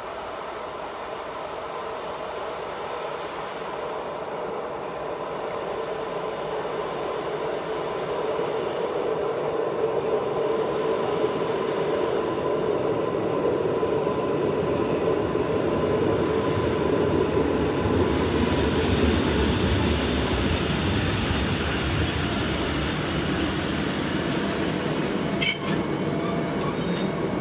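Electric multiple unit drawing into the station and braking: rail running noise grows steadily louder, with a steady whine through the first two-thirds. Near the end come high brake squeals and one sharp, loud click as it comes to a stop.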